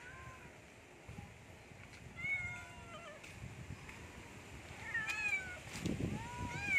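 Stray cats meowing, about four separate meows that each rise and then fall in pitch: hungry cats begging at feeding time.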